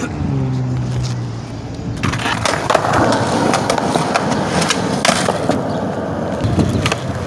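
Skateboard wheels rolling over concrete sidewalk, with several sharp clicks and knocks of the board, starting about two seconds in. A low hum is heard in the first second.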